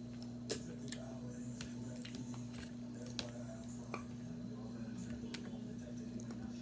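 Quiet chewing and wet mouth sounds from eating fresh fruit, with scattered small clicks and squishes as a piece of fruit is pulled apart by hand, over a steady low hum.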